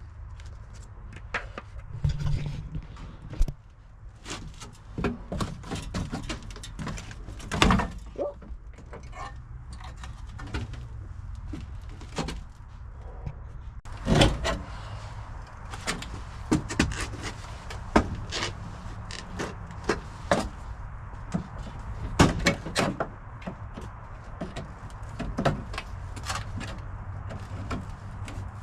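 Irregular metal knocks, clanks and rattles as cut sections of a rusted car floor pan are worked loose and pulled out, over a steady low hum.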